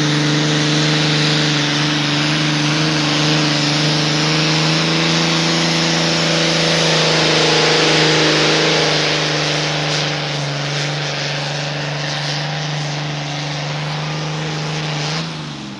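Modified pulling tractor's engine running flat out at a steady high pitch while dragging the weight-transfer sled, with heavy exhaust noise. Near the end its pitch falls and it winds down.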